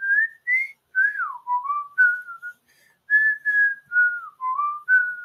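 A person whistling a short, wandering tune: a string of single clear notes, some held, some sliding down in pitch, with short breaths between phrases.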